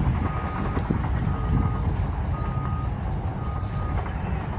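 A vehicle's reversing alarm beeping, four even beeps about a second apart, each about half a second long, over a steady low rumble.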